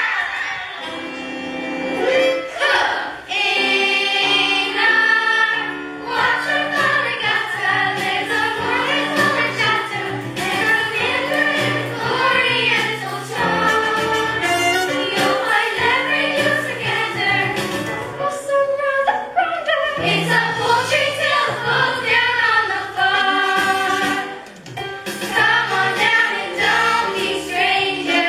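A chorus of voices singing a musical-theatre number over instrumental backing music.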